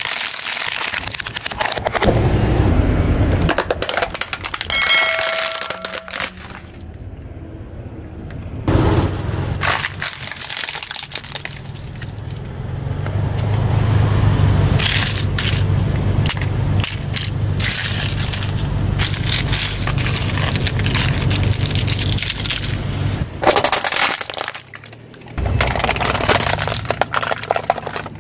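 Hard plastic toy vehicles cracking and snapping as a car tyre rolls over and crushes them on asphalt. There are several separate crushes, and a low steady hum runs through the middle stretch.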